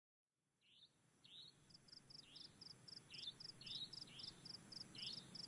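Faint crickets chirping in an even rhythm, about three to four short pulsed chirps a second, with short falling chirps over them. The sound fades in about a second in, after near silence.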